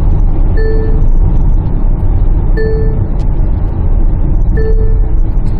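Low in-cabin road and engine rumble of a Kia Carnival minivan driving along, with three short electronic beeps about two seconds apart: the navigation's warning on approaching a speed-camera zone.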